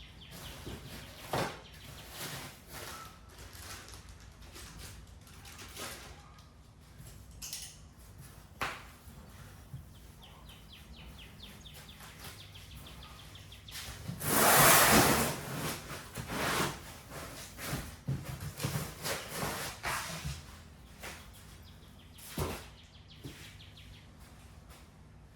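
Packaging and parts being handled during an unboxing: scattered knocks and clicks, with a loud rustle lasting over a second about fourteen seconds in.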